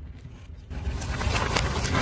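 A car rolls forward with a low engine rumble. A little under a second in, a dense run of crackling and crunching starts and grows louder: a car tyre crushing objects under its weight.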